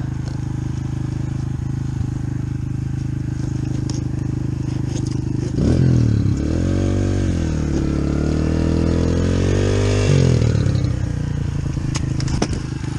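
Yamaha TT-R125 dirt bike's single-cylinder four-stroke engine running steadily at idle. About halfway through it is revved for about four seconds, its pitch rising, sagging and climbing again, then it drops back to idle. A few sharp clicks come near the end.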